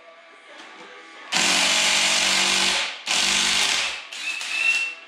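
Impact wrench hammering as it loosens bolts on an engine. There are two bursts of about a second and a half and a second, then a shorter run near the end with a high whine.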